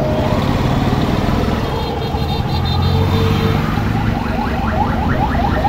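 Motor vehicle engine running steadily. About four seconds in, a fast-repeating rising tone joins it, about five short sweeps a second, like an alarm or siren horn.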